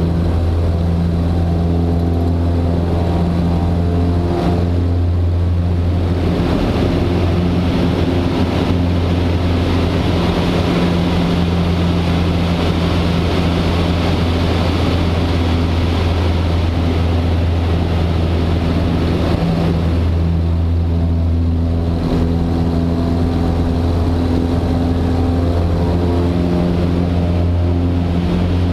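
Super Decathlon's 180 hp Lycoming four-cylinder engine and propeller droning steadily in flight, heard from inside the cabin. Wind rush over the airframe swells about six seconds in and eases again around twenty seconds in, while the engine's drone holds.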